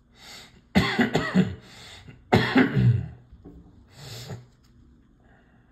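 A man coughing: a quick run of coughs about a second in, then another cough about two and a half seconds in.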